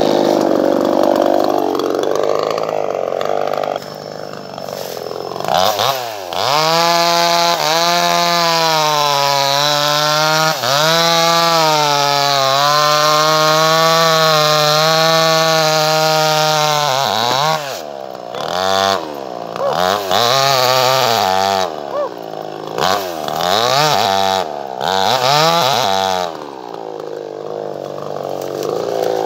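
Chainsaw engine running loud, held at high revs for about ten seconds with its pitch sagging and recovering as if under cutting load, then revved up and down in quick repeated blips.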